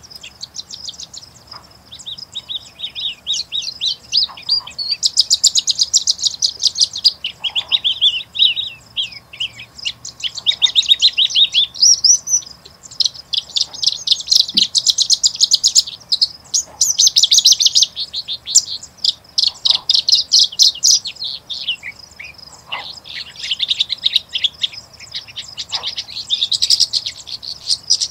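Singing bush lark (Horsfield's bushlark, Mirafra javanica) singing from a perch: a long, rapid, varied stream of ringing notes and trills, broken by brief pauses.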